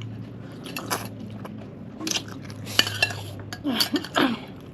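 Eating utensils clicking and scraping against dishes during a meal, a few sharp clicks spread out, over a steady low hum.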